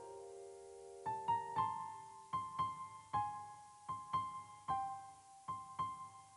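Background piano music: a slow, gentle melody of single notes, each struck and left to fade.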